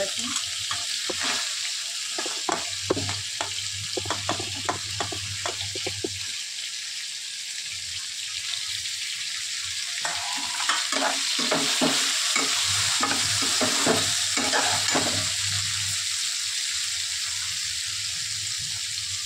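Soya chunks and vegetable masala sizzling in oil in a wok, with a metal slotted spoon scraping and clinking against the pan as they are stirred. The stirring comes in two spells, in the first few seconds and again in the middle, while the sizzle runs on steadily.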